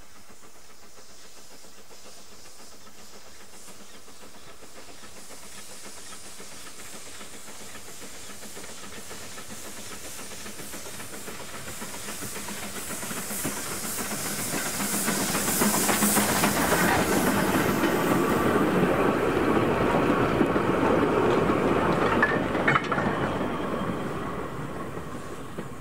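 A1X Terrier tank steam locomotive No. 11 approaching and passing with a short goods train, steam hissing from its open cylinder drain cocks. It grows louder to a peak about fifteen seconds in, with wheel clicks over the rail joints as the wagons go by, then fades near the end.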